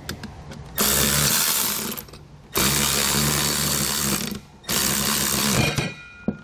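Cordless ratchet running in three bursts of one to two seconds each as it spins a nylon lock nut down onto a hex bolt and thick flat washer.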